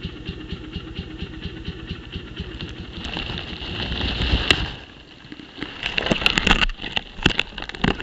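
Dirt bike engine idling with an even, fast pulse. Around three seconds in a rushing noise swells over it, and the engine fades about five seconds in. In the last few seconds come scattered close knocks and scrapes.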